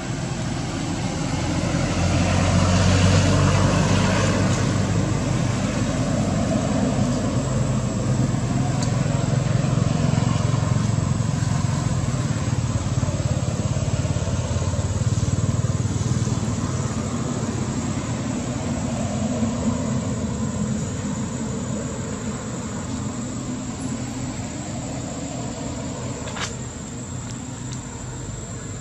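Engine rumble from a vehicle or aircraft that swells over the first few seconds and then slowly fades away.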